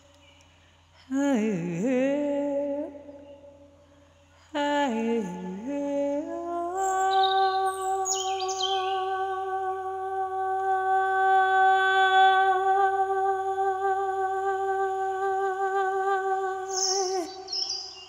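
A wordless voice humming: two short phrases that slide downward, then one long held note with a slight waver from about seven seconds in until near the end. Small birds chirp faintly over it.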